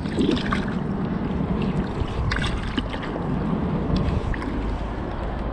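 Water sloshing and splashing around a hand and a peacock bass held in the shallows as the fish is let go, with a few sharper splashes about two and a half seconds in.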